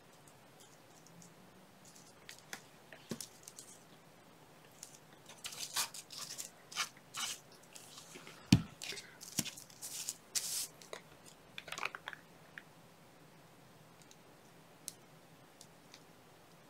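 Light paper rustles and small taps of hands handling paper doilies and a glue bottle on a cutting mat, scattered through the middle of the stretch, with one sharper knock about eight and a half seconds in.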